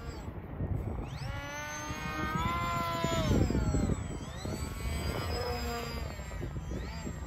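RC foam jet's brushless electric motor and propeller whining in flight. The whine rises slowly, drops sharply just after three seconds in, and comes back fainter around five to six seconds.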